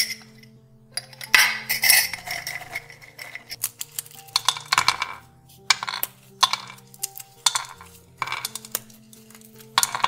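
Pecan pieces dropped by hand into an empty frying pan, clicking and tapping on the pan's surface in quick irregular clusters. Background music with sustained notes plays underneath.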